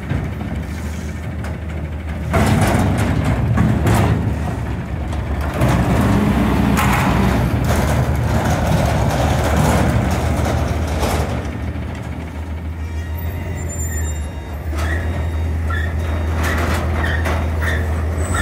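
Autocar front-loader garbage truck with an Amrep body running its diesel engine under load to work the hydraulic lift arms and forks, with clanks and bangs from the steel container and arms. It grows louder about 2 s in and again around 6 s, then eases off toward the end.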